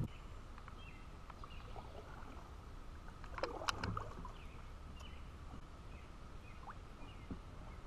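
Faint sounds of a plastic kayak on calm water: a low steady rumble with a brief cluster of knocks and splashy clatter about three and a half seconds in.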